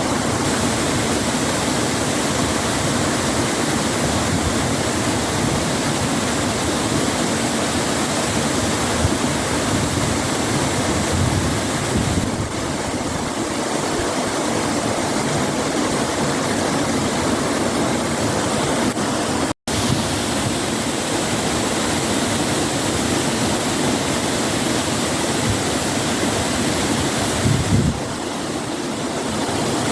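Waterfall running steadily: a dense, even rush of falling and splashing water, broken once by a split-second dropout about two-thirds of the way through.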